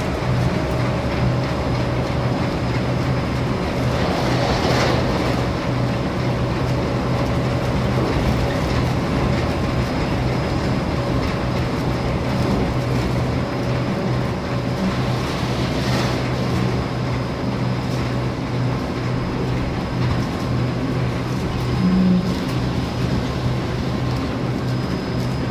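Airport people-mover train running, heard from inside the empty car: a steady low hum with running noise, and two brief rushes of noise partway through.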